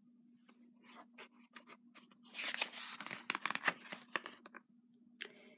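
Paper pages of a picture book being turned: light rustles and flicks, then a burst of paper rustling and crinkling from about two to four and a half seconds in, with a last short rustle near the end.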